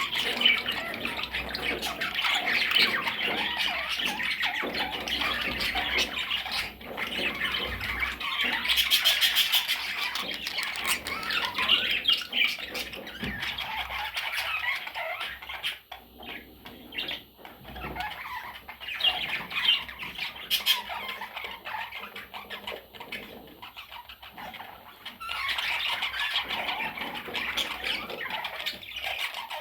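Several budgerigars chattering and squawking together, a continuous mix of warbles, chirps and harsh squawks, thinning out to sparser calls for a stretch in the middle before the full chatter returns near the end.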